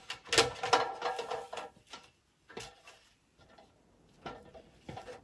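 Knocks and clanks of boots and hands on an aluminium extension ladder as a man climbs it, each with a brief metallic ring. There is a quick cluster in the first couple of seconds, then single knocks further apart.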